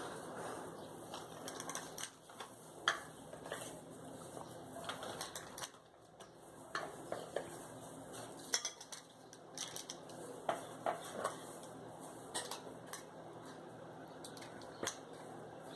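Metal ice cream scoop scraping and clinking against the pot as cookie dough is scooped out and dropped onto the baking tray, in scattered light clicks.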